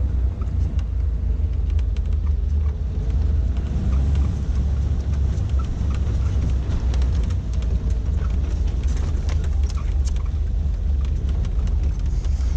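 A 1988 Suzuki SJ413 Samurai, with its 1.3-litre four-cylinder engine, driving on an unpaved mountain track. It is heard as a steady low rumble of engine and road, with scattered clicks and rattles.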